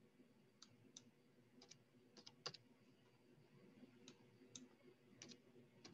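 Faint, scattered computer keyboard keystrokes and mouse clicks as numbers are typed into form fields, a dozen or so separate taps.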